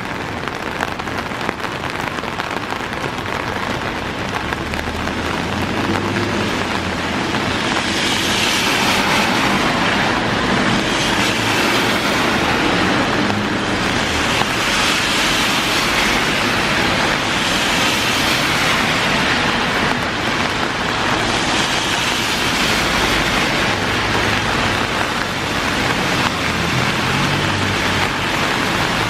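Heavy rain pouring steadily, with cars passing on a wet road: tyre hiss swells and fades several times from about a quarter of the way in.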